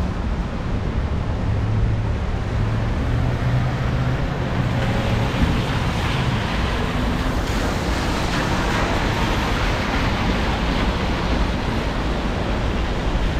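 Steady rushing noise of wind over the microphone and tyres on a wet road while cycling in the rain. A low steady hum runs through roughly the first five seconds.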